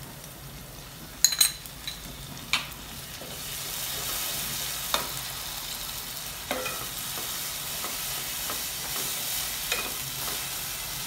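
Onions, green chillies and ginger-garlic paste sizzling in oil in a nonstick kadai while a slotted wooden spatula stirs and scrapes the pan. A few clinks of a steel spoon against the bowl come in the first couple of seconds as the paste is scraped in, and the sizzle grows louder about three and a half seconds in.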